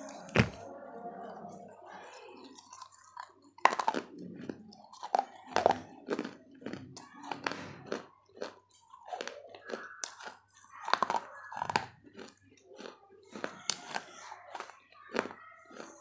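A person biting and chewing fired clay from a large terracotta matki (clay pot): irregular sharp cracks as pieces snap off, with gritty crunching between the teeth, the loudest cracks about four seconds in and again around eleven seconds.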